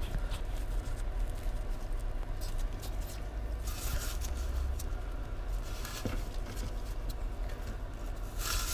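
Faint rustling and scraping of a nitrile-gloved hand gripping and working a spin-on motorcycle oil filter loose by hand, with soft scuffs around the middle and again near the end, over a low steady hum.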